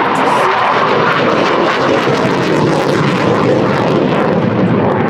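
Panavia Tornado jet making a low pass, the loud rushing noise of its twin RB199 turbofans sinking lower in pitch in the second half.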